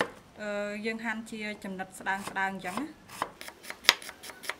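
A large kitchen knife slicing red onion on a wooden cutting board. The rapid chopping knocks, about four or five a second, come in the last second and a half; before them a voice speaks for about two and a half seconds.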